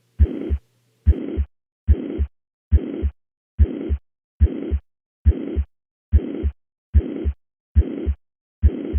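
Heart sounds recorded through a stethoscope diaphragm at the cardiac apex, about 70 beats a minute. Each beat is a low first thump, then a high-pitched, uniform murmur filling the whole gap, then a second low thump. It is a holosystolic murmur, and the most likely diagnosis is mitral regurgitation.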